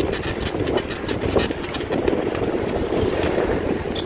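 Bicycle rolling along a paved street, heard from a handlebar-mounted camera: steady tyre and wind rumble with irregular rattling and clicking from the bike's frame and mount.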